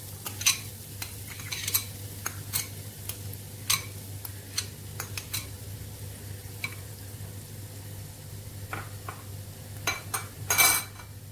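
Chopped onion going into hot olive oil in a nonstick frying pan and sizzling faintly, while a metal spoon scrapes and taps repeatedly against the bowl and pan. There is a louder clatter near the end.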